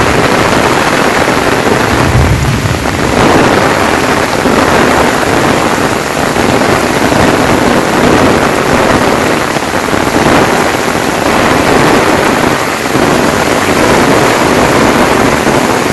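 Heavy rain pouring in a gusty storm, with the wind rumbling on the microphone. A loud, steady rush that swells and dips with the gusts.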